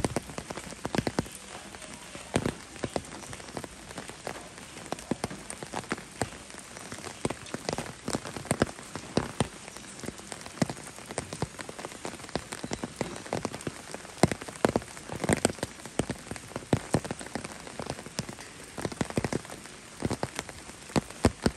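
Steady rain, a constant patter with many sharp, irregular drop hits close by.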